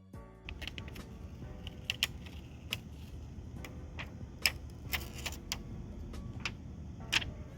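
Scattered light clicks and taps as a new adhesive screen seal is handled and pressed onto the frame of an opened phone, over a low steady background hum.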